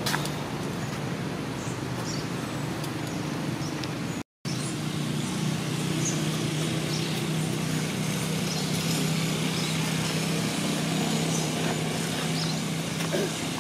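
Steady outdoor background noise with a low hum and a few faint, short high chirps; the sound drops out for a moment about four seconds in.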